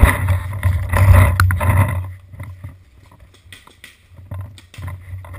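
Low rumble of wind and handling noise on an action camera's microphone. After about two seconds it quiets to scattered crunches of footsteps on dry leaf litter.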